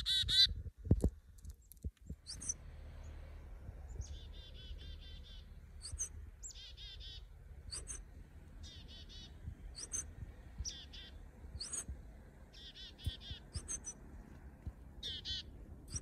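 Black-capped chickadee calling over and over, about every two seconds: chick-a-dee calls, each a short high note followed by a run of harsh 'dee' notes. There are a few low thumps about a second in.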